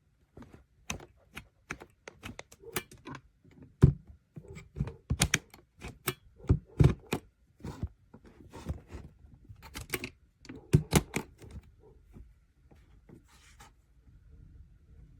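Irregular clicks, taps and knocks of hard objects being handled, in quick uneven runs. The sharpest knock comes about four seconds in and another cluster about eleven seconds in, and they die away near the end.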